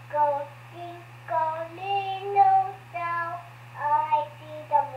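A child singing a tune in phrases of held notes, heard through the speaker of a Fisher-Price 900 MHz baby monitor receiver. The voice sounds thin, with a steady low hum from the monitor beneath it.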